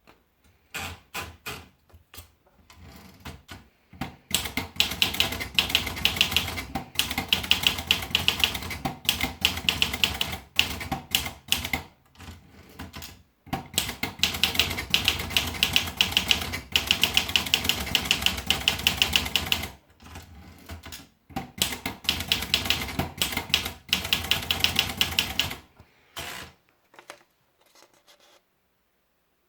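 Olivetti Lettera DL manual portable typewriter being typed on: fast runs of keystrokes broken by short pauses, thinning to a few strikes and stopping near the end.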